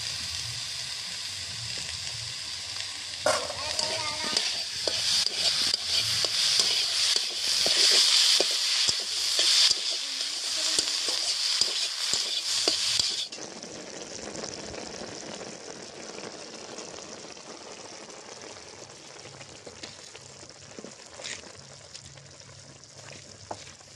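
Tree flowers and chopped tomato frying in a metal wok, sizzling loudly while a metal spatula stirs and scrapes with many small clicks. About 13 s in, the sound drops suddenly to a softer, steady sizzle.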